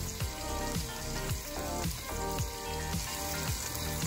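Shredded chicken al pastor sizzling in an enameled cast-iron pot as it is stirred with a fork, under background music with a steady beat.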